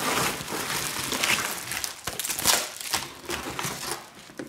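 Bubble wrap and plastic packing crinkling as hands rummage in a cardboard shipping box, with the crackling dying down near the end.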